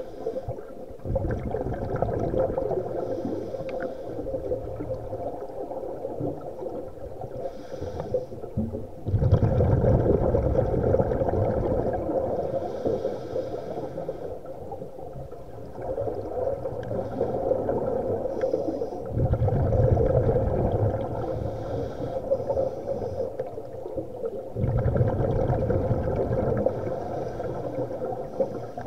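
Scuba breathing heard underwater: a surge of low bubbling from regulator exhaust comes every several seconds, with brief hissy inhalations between, over a steady underwater hum.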